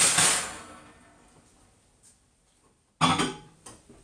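Loud clunk with a short ringing tail, then a second, shorter clatter about three seconds later, as a bowl goes into a microwave oven and its door is handled.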